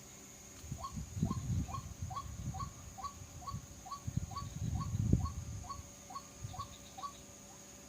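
A white-breasted waterhen call: a steady series of short rising notes, about two to three a second, starting about a second in and stopping near the end. Low rustling thumps are heard under it, loudest about five seconds in, over a steady high hiss.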